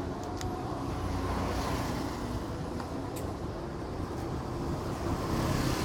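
Steady background noise of a busy street: a low rumble of traffic and bustle, with a few faint clicks, growing a little louder near the end.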